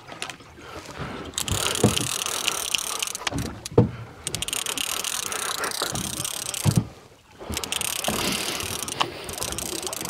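A boat fishing reel being wound in against a hooked fish, its gears whirring in two long spells with a short pause between them, and a few knocks from the rod and reel handling.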